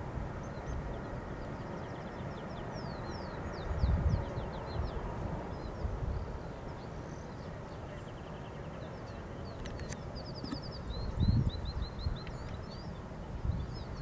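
Small birds chirping and trilling over a steady low rumble. Wind gusts on the microphone twice, about four seconds in and again about eleven seconds in.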